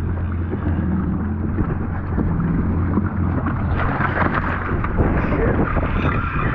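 Wind buffeting the microphone over a steady low rumble of wind and sea on the jet ski. About four seconds in, water splashes and churns at the hull as a hooked Spanish mackerel thrashes at the surface.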